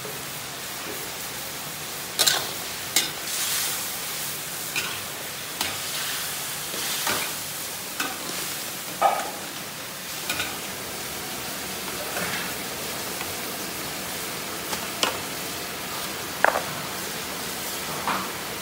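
Metal spatula scraping and clinking against a steel wok while a thick stew is stirred, in irregular strokes every second or two, over a steady sizzling hiss from the simmering pot.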